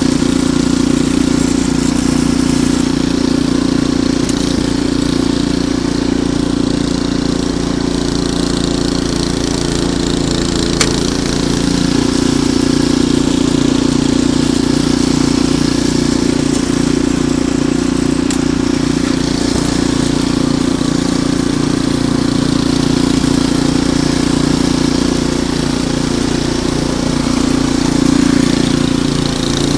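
Ariens Deluxe 28 snowblower engine running steadily.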